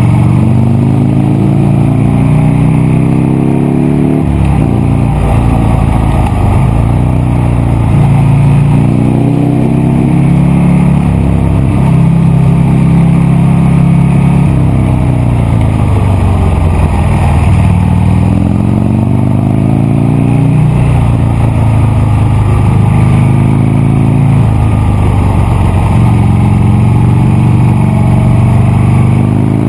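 Buell Lightning XB9 SX's air-cooled V-twin engine running under way, its pitch climbing as it accelerates and then falling back, several times over, with sudden drops like gear changes about four seconds in and again near the end.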